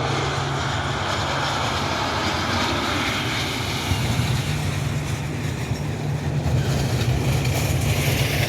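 Jet airliner engines rumbling as an inbound plane passes close by on arrival, the noise growing louder about halfway through.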